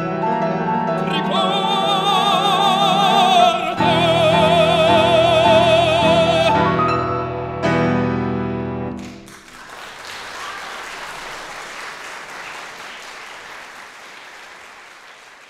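Baritone singing the final held notes with wide vibrato over grand piano accompaniment. The voice stops about six and a half seconds in and the piano closes with chords. From about nine seconds in, applause fades away toward the end.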